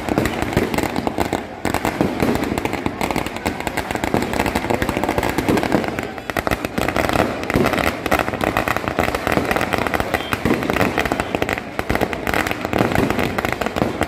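Ground fireworks and firecrackers going off in a dense, continuous crackle of rapid sharp pops.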